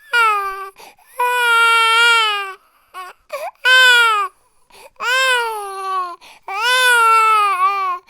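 A baby crying hard in about five loud wails, each dropping in pitch at its end, with short catches of breath between them.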